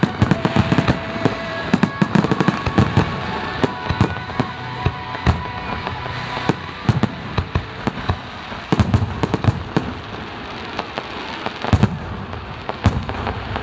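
Fireworks display: shells bursting in irregular clusters of sharp bangs and crackles, with music faintly underneath.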